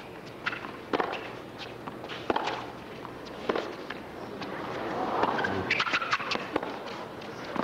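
Tennis rally: a ball struck back and forth with sharp racket hits roughly once a second, then a quick cluster of hits and clicks near the end, over a crowd murmur that swells past the middle.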